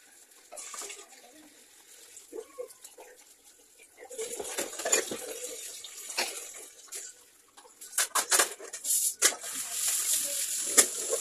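Kitchen tap running into a sink as dishes are washed by hand: splashing water, with a run of clinks and knocks of bowls and containers in the last few seconds.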